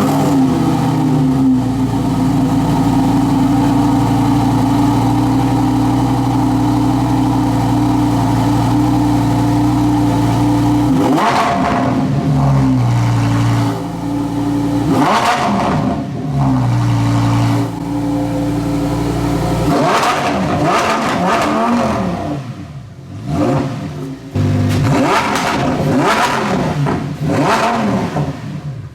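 Lamborghini Huracán STO's naturally aspirated 5.2-litre V10 just after starting, idling steadily at first. About eleven seconds in it is blipped a few times, the revs rising and falling, and in the last third it is revved in a run of quick, sharp blips.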